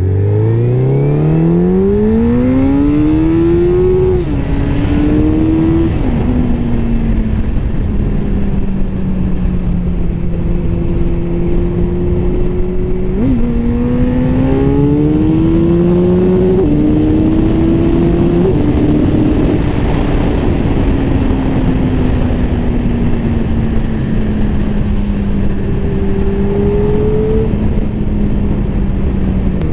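Suzuki Hayabusa's inline-four engine accelerating hard. The revs climb steeply with two upshifts in the first six seconds, settle into a steady cruise, then jump up on a downshift around 13 seconds for a second pull with more upshifts, before easing back into a cruise under steady wind rush.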